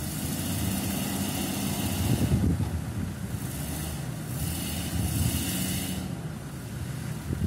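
Jeep Wrangler engine running under load as the stuck vehicle tries to drive out of a muddy stream crossing, swelling twice. Two stretches of hiss run over it.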